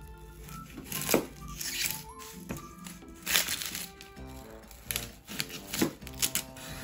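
A chef's knife slicing through an onion and knocking on a wooden cutting board: several sharp knocks roughly a second apart. Background music plays throughout.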